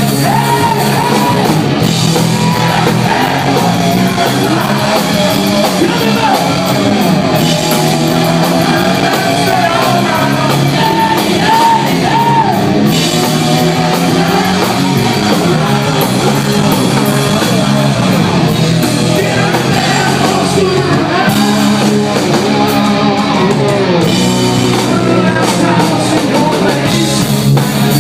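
Rock band playing live and loud, electric guitar over bass and drums, with a voice wavering in and out around the guitar line.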